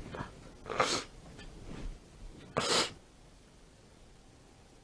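A woman's nose in an allergic sneezing fit brought on by a cat: two short breathy nasal bursts, one about a second in and a sharper one near the middle.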